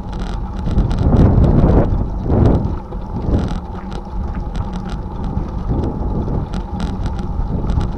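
Wind buffeting the microphone of a bicycle-mounted camera while riding, with the tyres crunching over a gravel path and frequent short clicks and rattles from the bike.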